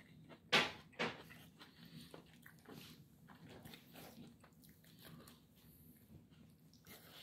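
A person eating: soft chewing and mouth smacks, with a plastic spoon scooping fried rice from a plate. Two sharp, louder clicks come about half a second and a second in.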